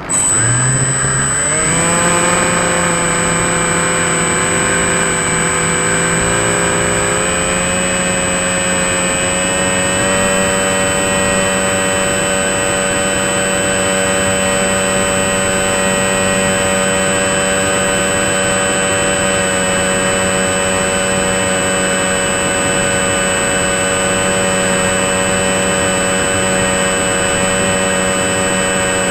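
RC model plane's electric motor and propeller, heard from a camera on board: the motor starts abruptly, its whine rising in pitch over the first couple of seconds, steps up again about ten seconds in, then runs steadily. A constant high-pitched tone sits above it.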